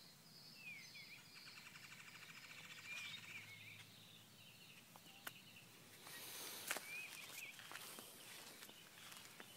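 Faint outdoor birdsong: a few short swooping chirps and a rapid trill lasting about two seconds in the first half, with a couple of faint clicks later on.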